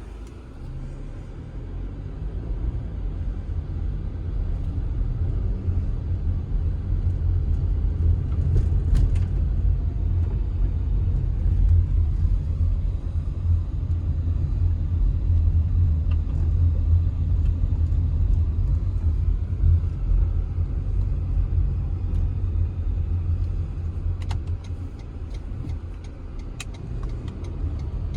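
A car driving, a steady low engine and road rumble that builds over the first few seconds, with a few faint clicks.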